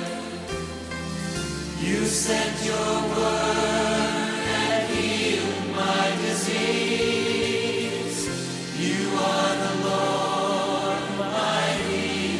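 Christian worship music: a choir singing long held chords over instrumental backing.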